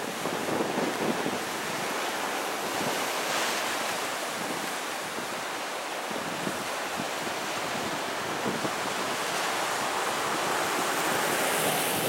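Ocean surf breaking and washing over a shore of rocks and boulders, a steady rushing wash that swells louder near the end, with wind buffeting the microphone.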